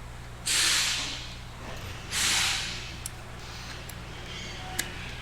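Two short hissing spray bursts about a second and a half apart, each fading out, with a few faint clicks later on.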